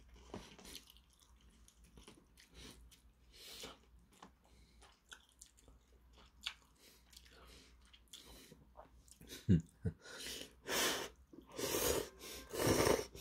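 Metal chopsticks stirring and lifting instant ramyun noodles in a paper cup, with faint clicks and soft noises. Then a person slurps the noodles in several loud pulls over the last few seconds.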